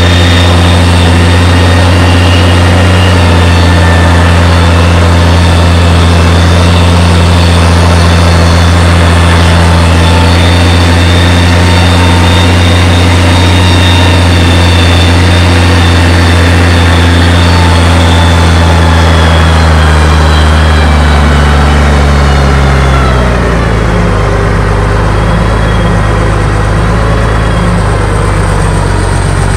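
Tractor diesel engine running steadily under load while pulling a disc harrow, heard from the driver's seat. About three quarters of the way through, the engine speed drops to a lower, steady pitch.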